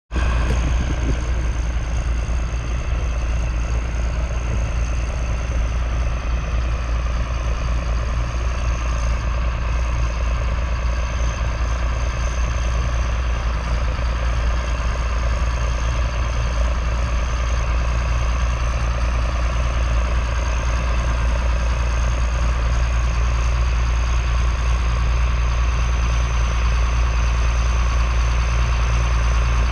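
John Deere 4455's 7.6-litre six-cylinder diesel engine running steadily as the tractor pulls a five-furrow reversible plough, growing slightly louder as it comes closer.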